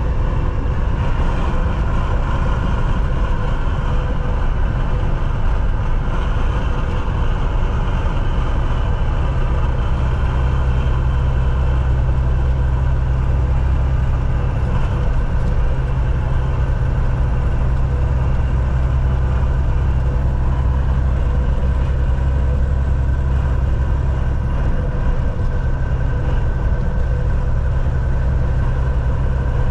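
Semi truck's engine and road noise while driving: a steady low drone that stays even throughout, with faint steady tones above it.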